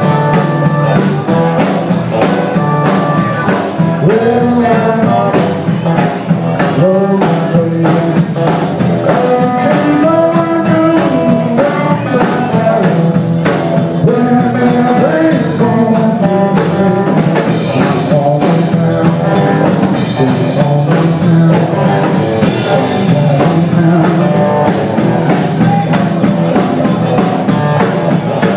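Live blues-rock band playing: electric guitar, bass guitar and drum kit, with a harmonica wailing a bending melody over them.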